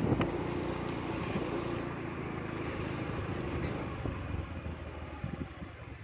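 Steady running noise of a moving road vehicle: a low engine hum and rumble with wind on the microphone, easing off slightly near the end.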